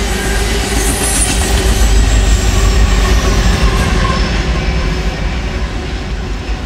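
Freight train rolling past: steel wheels rumbling and clattering over the rail with some high-pitched flange squeal on the curve, and diesel locomotives at the rear of the train going by. The noise slowly eases off over the last few seconds as the train passes.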